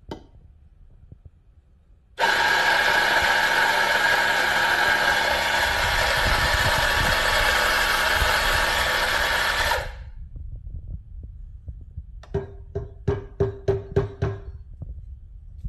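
Fiorenzato F64 EVO XGi espresso grinder starting about two seconds in, running steadily for some seven seconds while it grinds coffee into a portafilter, then cutting off. About two seconds after it stops there is a quick run of about eight knocks.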